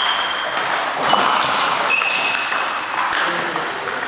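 Table tennis doubles rally: the celluloid ball clicking off bats and table at intervals, with a few short high squeaks, typical of shoes on the sports-hall floor, over a steady hall background.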